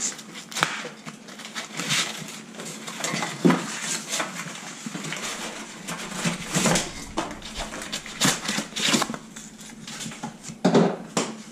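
Metal frame pieces of a Summit Viper SD climbing tree stand clanking and rattling against each other as they are handled and fitted together: irregular knocks, with louder clanks about three and a half seconds in and near the end.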